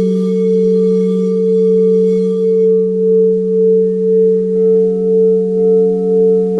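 Singing bowls ringing in sustained, overlapping low tones. The higher overtones die away a few seconds in, the sound then takes on a steady wavering pulse of about two beats a second, and a little later another bowl comes in with higher tones.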